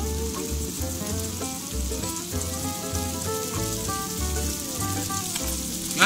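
Stir-fry of beef and mixed vegetables sizzling in a frying pan, a steady hiss, over background music with a pulsing bass beat. A single sharp click right at the end.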